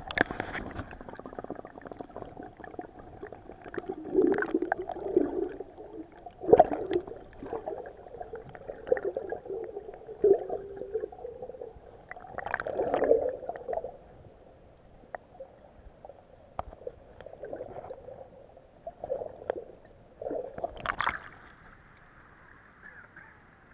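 Muffled underwater gurgling and sloshing heard through a submerged action camera's housing, with scattered sharp knocks. A splash about 21 seconds in as the camera breaks the surface, then a steady light hiss of surface water.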